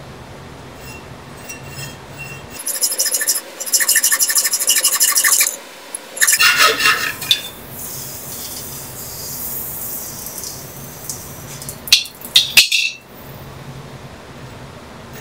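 Hacksaw cutting through a copper water pipe: rapid back-and-forth rasping strokes, loudest for a few seconds in the first half, then a few sharp knocks near the end.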